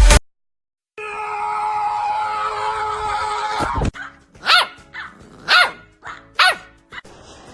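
A long steady held tone that drops off at its end, then a dog barking three times, about a second apart.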